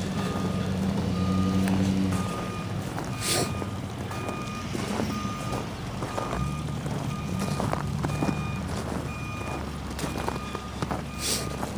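Vehicle's reversing alarm beeping steadily, about one beep every 0.7 seconds, over an engine running. A short hiss comes about three seconds in and again near the end.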